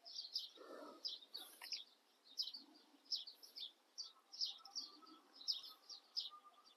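Small birds chirping faintly, a steady run of short, high chirps several times a second.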